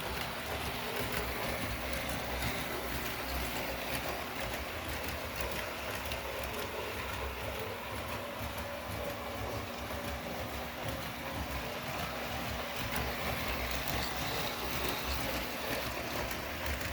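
Holiday Express electric toy train running slowly around its track: a steady motor whir and wheel rumble with scattered faint clicks.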